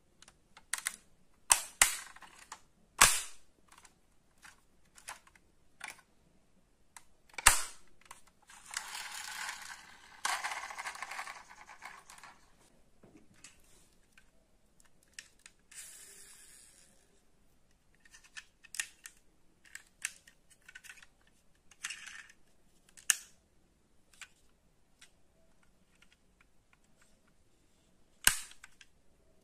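Sharp clicks and clacks of die-cast model car doors being swung open and snapped shut by hand, scattered irregularly. A few seconds of scraping and rustling from handling the model come about a third of the way in.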